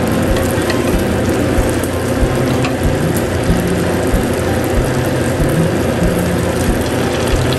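Caramelised pork ribs sizzling and bubbling in a clay pot in a thick sauce, a steady dense crackle with small irregular pops.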